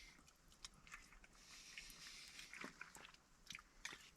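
Faint chewing with a few soft, scattered clicks: a person eating.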